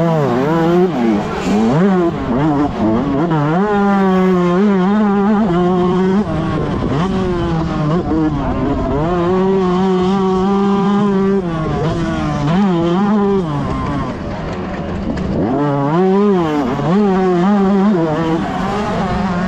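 A 125cc two-stroke motocross bike engine revving hard. The pitch rises and falls over and over as the throttle is worked, with a couple of longer spells held steady at high revs.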